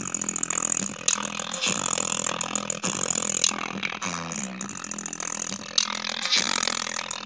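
Low, rough electrical buzz from a homemade amplifier circuit built around a BU2508AF power transistor. It wavers and breaks up, with scattered clicks and crackles, as fingers press on the transistor and its clipped-on leads.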